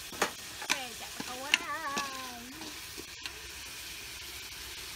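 A metal ladle clinking sharply against a steel cooking pot several times in the first two and a half seconds, over a steady hiss of the pot cooking on the fire.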